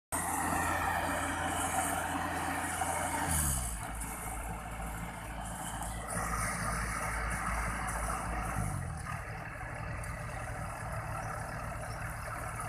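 Engine of a World Star rice combine harvester running steadily as it readies to unload paddy. Its pitch steps down about three seconds in and comes back up near nine seconds.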